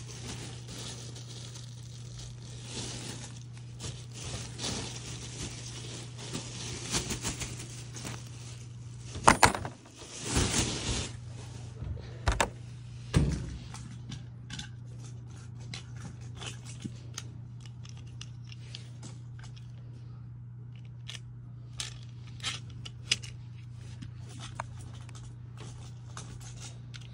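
Scattered clicks and rattles of small hard objects being handled, with the loudest clatter about nine to eleven seconds in, over a steady low hum.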